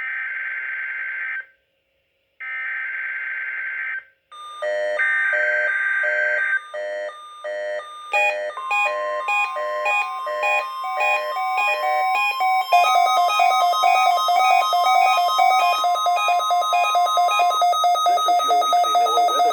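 NOAA Weather Radio Required Weekly Test signal: three short bursts of SAME digital header data, then the steady 1050 Hz warning alarm tone. A Midland weather radio receiver's own alarm beeps over it from about four seconds in, in a repeating pattern that turns into fast continuous beeping about thirteen seconds in.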